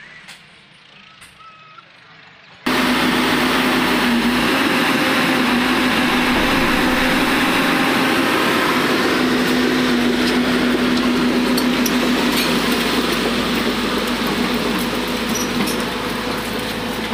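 XCMG XE80C excavator's diesel engine running loud and steady close by, with a steady drone; it cuts in suddenly about three seconds in after a fairly quiet start.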